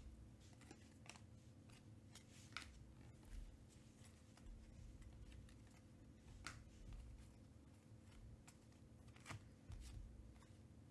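Faint handling of a stack of 2020 Panini Contenders baseball cards: soft clicks and slides as card stock is sorted by hand, a few sharper taps about a second or two apart. A faint steady hum lies underneath.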